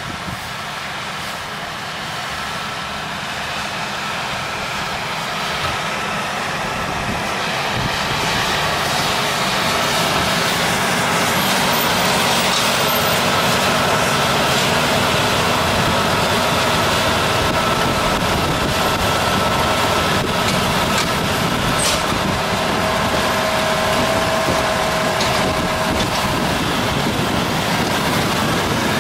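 John Deere tractor engine running under load while its McHale Fusion baler-wrapper works, baling silage. The steady machinery noise grows louder over the first ten seconds or so as the outfit approaches, then holds, with a faint steady whine.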